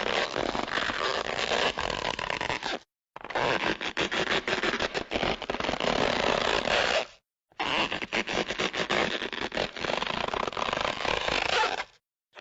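Cartoon stretch sound effect played three times, each a rough, scraping stretch of about three to four seconds dense with rapid crackles, separated by brief silences.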